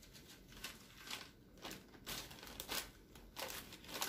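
Faint crinkling of a small plastic sachet of ground black pepper as it is handled and shaken over the meat, in a series of short, irregular crackles.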